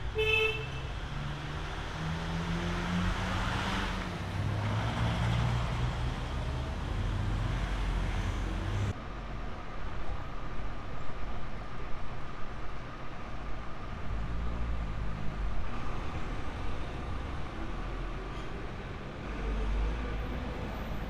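Road traffic: motor vehicles passing with a low engine rumble that swells and fades, with a brief pitched beep at the very start.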